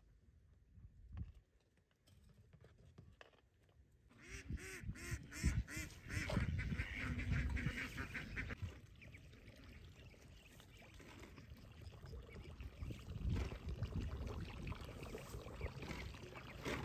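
A flock of Muscovy ducks calling repeatedly, starting about four seconds in after a quiet opening.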